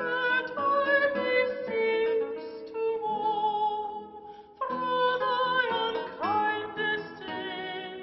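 Classical guitar playing a slow passage of plucked notes and chords, breaking off briefly about four seconds in before playing on.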